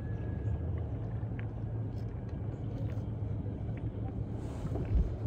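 Sea-Doo jet ski engine idling with a steady low hum, and one dull thump near the end.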